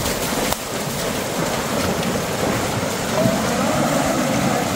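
A herd of cattle wading through shallow floodwater, hooves splashing steadily.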